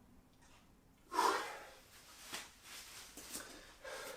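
A man breathing hard during a rest between exercises: a loud exhale about a second in, then several shorter, fainter breaths.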